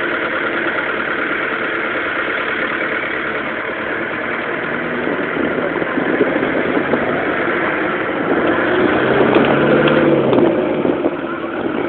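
Vehicle engine and road noise heard from inside a moving vehicle, running steadily. It swells louder for a few seconds around nine seconds in.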